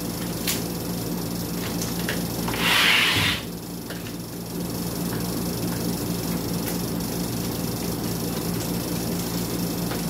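A short burst of hiss, about a second long, around three seconds in, over a steady low hum, with a few light clicks of parts being handled.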